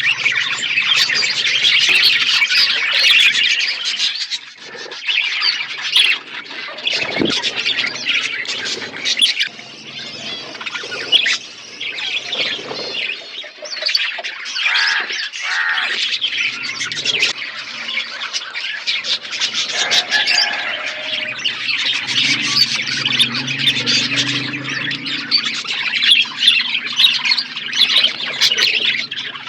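A flock of budgerigars chattering and chirping without pause, with many overlapping warbles and sharper squawks.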